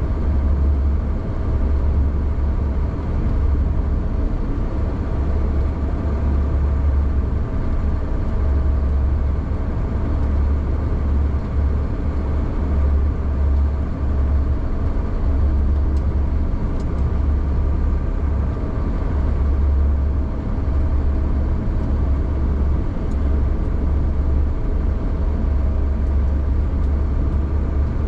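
Engine of a snow vehicle running with a steady low drone as it drives slowly down a groomed ski slope.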